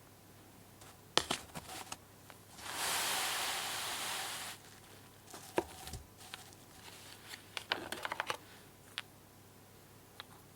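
Small wooden toy pieces being handled: sharp clicks and taps, with a steady hissing rustle lasting about two seconds near the start and a quick run of clicks later on.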